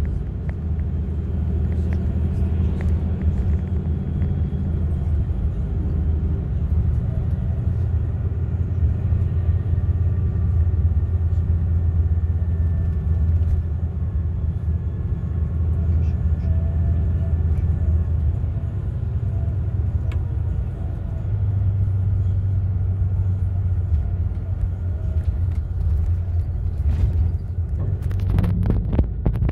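Engine drone and road rumble heard inside a moving bus, steady and low, with the engine note changing about two-thirds of the way through and a few rattles near the end.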